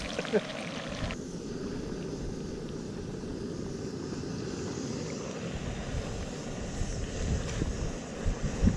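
Backpacking canister stove burners running with a steady roar under a pot of pasta water and a pan of bacon, with a hiss of the bacon sizzling. A few low thumps come near the end.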